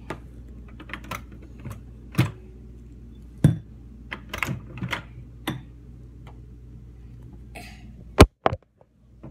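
Scattered light clicks and knocks as a dish is handled at a microwave, over a steady low hum. Two loud, sharp clicks come near the end, and after them the hum stops.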